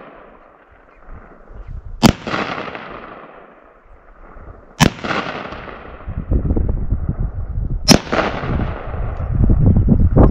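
Three rifle shots from an A2-style AR-15 firing IMI 5.56 NATO 77-grain boat tail hollow points, about three seconds apart, each a sharp crack followed by an echo that fades over a couple of seconds. A low rumble builds under the last shot.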